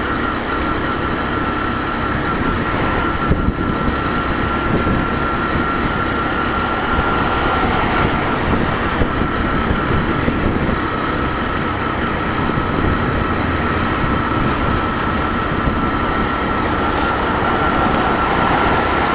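Commuter motorcycle cruising steadily on the road, heard from the rider's camera: engine and wind noise with a thin steady whine.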